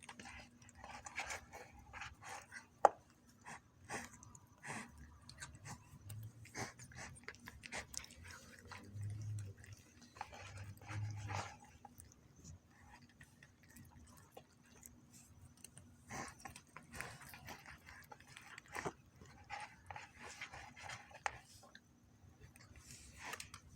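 Cats eating a snack, with irregular small crunching and clicking sounds of chewing, and one sharp click about three seconds in.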